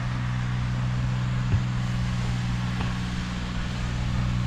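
Engine of a sand-levelling vehicle running steadily at low revs, a low hum. A short knock about one and a half seconds in.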